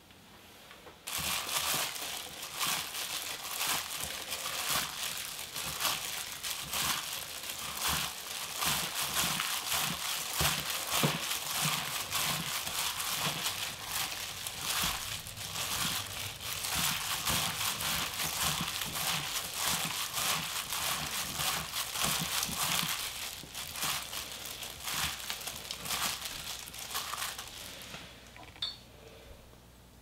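Disposable plastic gloves crinkling as gloved hands toss and squeeze seasoned spinach in a glass bowl: a dense run of small crackles that starts about a second in and stops near the end.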